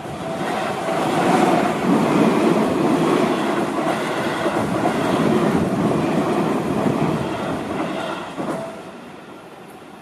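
A commuter train passes over the level crossing: wheel and track noise builds in the first second, holds, and fades after about eight seconds. The crossing's warning bell rings in repeated tones behind it.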